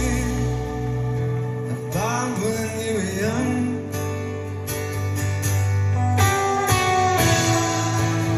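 Band music without lead vocals: guitars playing over a held bass note, with sliding pitched notes a couple of seconds in and plucked guitar notes through the second half.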